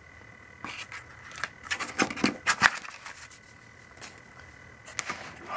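Handling noise on a workbench: paper sheets and a small wired sensor are picked up and moved, giving a quick run of light clicks and paper rustles in the first half and one more near the end.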